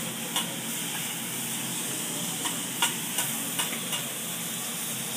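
Food sizzling on a hibachi griddle while metal spatulas scrape and clack against the hot steel plate. The sizzle is steady, with a few sharp clacks, most of them in the middle.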